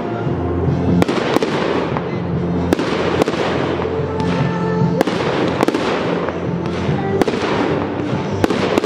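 Aerial firework shells bursting in a string of sharp bangs, about one a second, each followed by a crackling hiss as the stars spread. A music track with steady bass notes plays underneath.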